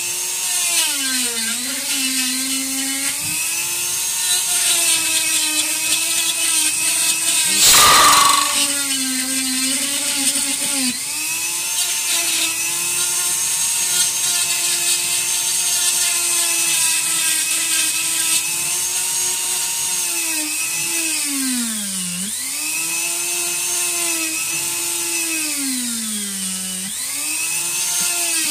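Flex-shaft rotary carving tool cutting into wood: a steady high whine that repeatedly drops in pitch as the bit bears into the wood and climbs back as it eases off. There is a brief, loud, noisy burst about eight seconds in.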